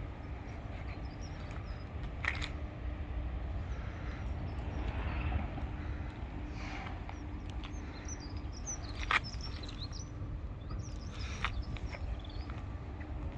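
Outdoor ambience: birds chirping over a steady low rumble, with a few sharp clicks about two, nine and eleven seconds in.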